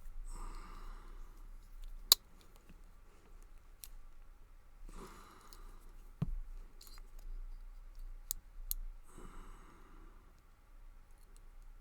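Small sharp clicks and taps of metal tools on a brass padlock as its pin tumblers and springs are picked out. The loudest click is about two seconds in, a duller knock comes about six seconds in, and three soft rustles come about four seconds apart.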